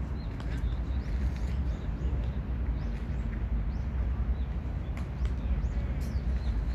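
Outdoor ambience: a steady low rumble with a few faint, short bird chirps and occasional faint clicks.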